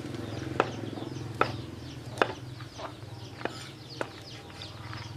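Chickens calling: many short, falling high chirps, with five sharp knocks spaced irregularly over a steady low hum.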